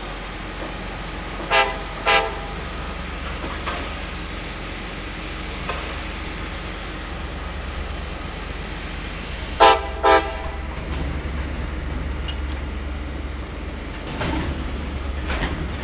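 A train horn gives two quick short toots, then two more about eight seconds later, over a low steady rumble. Near the end the rumble of rolling rail cars grows louder.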